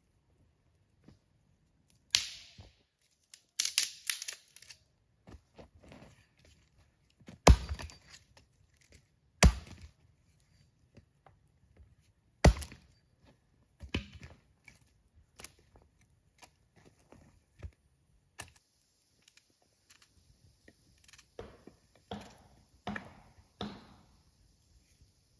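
Small hatchet chopping and splitting sticks of firewood: a series of sharp knocks, the loudest two to three seconds apart, mixed with cracks of splitting wood. Later a faint steady hiss comes in with a few softer knocks.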